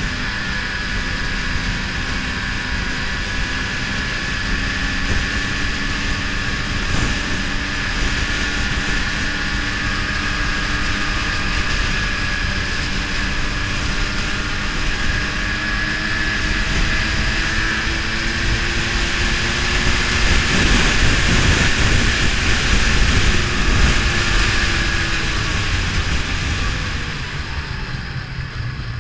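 Ski-Doo snowmobile engine running steadily under way, heard from the rider's seat over a steady rush of air noise. The engine note climbs slowly, the rush swells a few seconds past the middle, and the sound eases off near the end.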